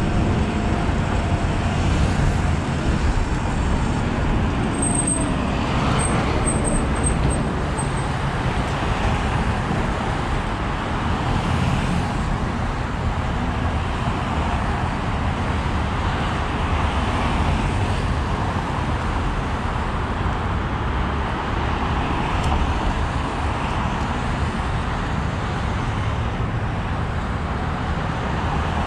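Steady city traffic and road noise heard while riding a Sur Ron electric dirt bike through the streets, with a few brief high-pitched chirps about five to eight seconds in.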